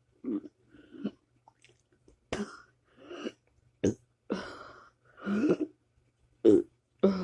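Repeated burping: about a dozen short, throaty burps in quick succession, with short pauses between them.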